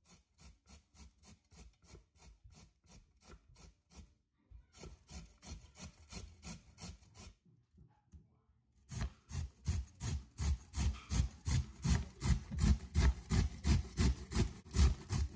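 Peeled raw beet being grated by hand on a grater: quick rasping strokes, about three or four a second, in three runs with short pauses between them, the last run the loudest.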